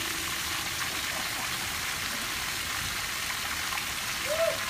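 Water gushing steadily from open drain valves at the base of full plastic rain tanks and splashing onto wet grass, the tanks being emptied at full flow. A brief short tone sounds once near the end.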